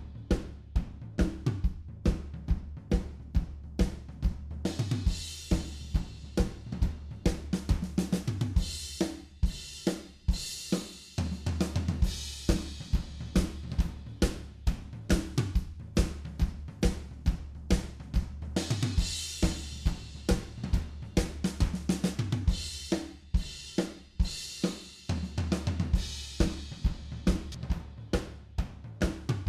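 A recorded groove of a full drum kit (kick, snare, hi-hat and cymbals) with a bass line underneath, played back through compressor plugins. The hits fall at about two a second.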